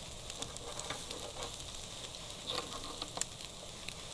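Shashlik skewers of pork and lamb sizzling over the fire in a mangal grill: a steady hiss with scattered crackles and pops, a few sharper pops in the second half.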